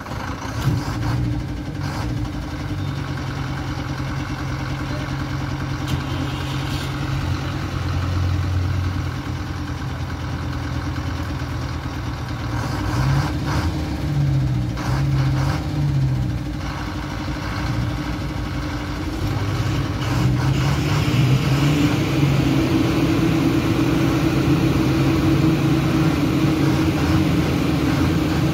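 Diesel engine of a heavily loaded Ashok Leyland lorry running at low revs, its note shifting up and down in the middle. About two-thirds of the way in it revs up and grows louder as the truck creeps forward.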